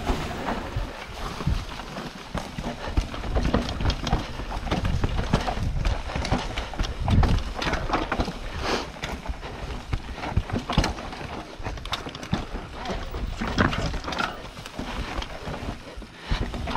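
Mountain bike riding over a rocky trail: irregular knocks and rattles as the tyres and bike clatter over stones, over a steady low rumble.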